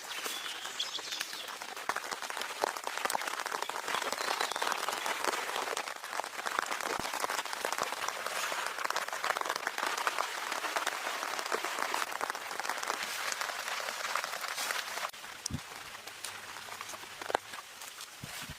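Rain pattering steadily: a dense crackle of countless drops, which thins and softens about three-quarters of the way through.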